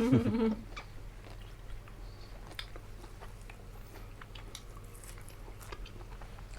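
Close-up chewing and biting of food, with scattered small mouth clicks and crunches, after a brief voice at the start.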